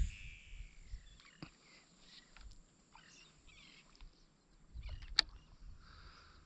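Light water splashing and sloshing in short irregular patches, with a few sharp clicks, the loudest about five seconds in.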